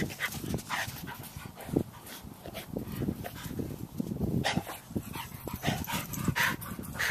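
Two dogs, a boxer and an Australian cattle dog mix, playing rough: irregular short barks and whines mixed with panting.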